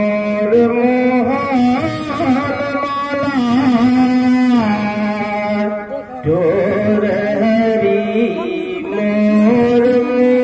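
A man singing a phagua, a Holi folk song, in long held and sliding notes with harmonium accompaniment. A line ends about six seconds in and the next begins straight after.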